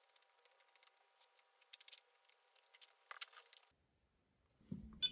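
Faint eating sounds: small clicks and scrapes of a utensil against a plastic takeout container, with chewing, over a faint steady hum. They stop abruptly a little over three and a half seconds in, and a brief low rumble and a click follow near the end.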